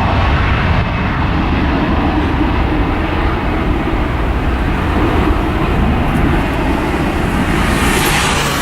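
Jet airliner's engines, a loud steady rumble as the aircraft goes by, with a rising hiss near the end.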